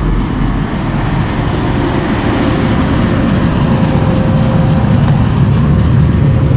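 Steady low mechanical rumble with a faint steady hum above it, growing slowly louder.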